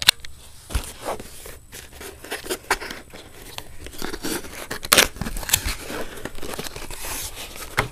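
Cardboard camera box being handled and opened: a run of rustling, scraping and small clicks from the flaps and packaging, with a sharper snap about five seconds in.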